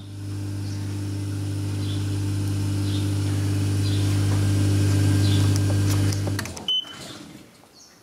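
Vulcan Dishlex 500E dishwasher's pump motor running with a steady hum that slowly grows louder, then stops about six and a half seconds in. A short high beep from the control panel follows.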